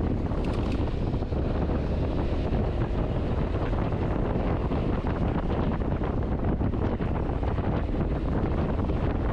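Steady wind rush buffeting the microphone of a camera mounted on a moving Honda ADV 350 scooter, with a low rumble of road and engine beneath it.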